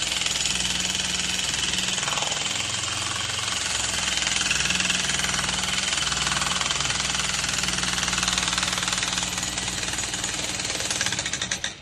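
Heavy-duty jackhammer hammering continuously in rapid, even strokes, stopping abruptly near the end.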